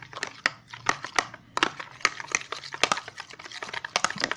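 A spoon stirring clear glue and water in a bowl, with quick, irregular clicks and taps of the spoon against the bowl.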